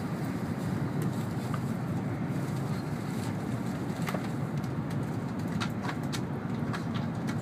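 Steady low running rumble of an N700 series Shinkansen travelling at speed, heard inside the passenger cabin, with a few faint ticks in the second half.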